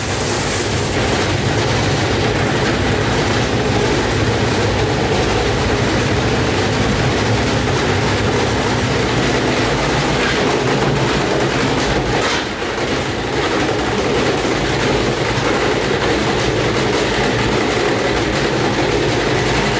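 Gorenje WNHEI front-loading washing machine spinning hard with a load of soaking wet clothes: a loud, steady rumble with rattling as the machine shakes itself apart. The noise drops briefly about twelve and a half seconds in.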